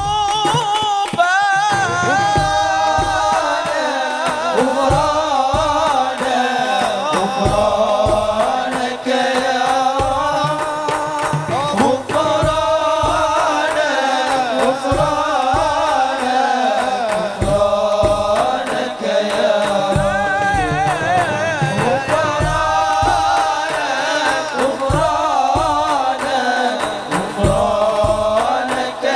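Sholawat, Islamic devotional song: male voice singing a wavering, ornamented Arabic-style melody through a sound system, over a steady low drum beat.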